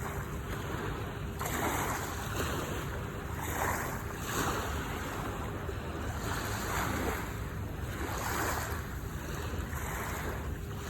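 Sea waves washing onto the shore, the hiss of surf swelling and falling away every second or two over a steady low rumble.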